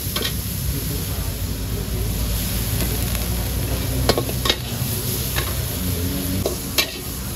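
Food sizzling as it is stir-fried in a wok, a spatula scraping and tossing it, with several sharp metal clinks of the spatula against the pan.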